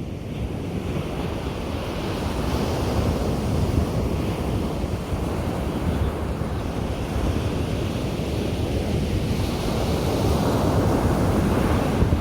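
Ocean surf breaking and washing up on a sandy beach, a continuous rushing noise that swells slowly and is loudest near the end.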